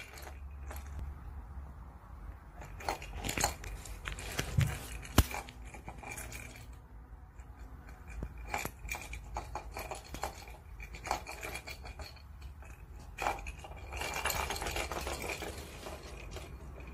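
A plastic ball rattling and rolling around a plastic ball-track cat toy as kittens bat at it: a run of irregular sharp clicks and knocks, with a longer rolling scrape near the end.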